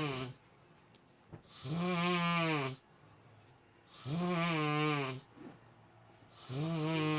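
A person snoring in a steady rhythm, about one snore every two and a half seconds. Each snore is a low, pitched drone lasting about a second, with a quiet gap between.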